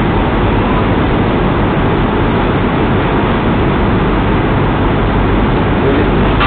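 Steady loud hiss with a low hum underneath, the constant noise of a security camera's built-in microphone; no ball strikes or other distinct events stand out.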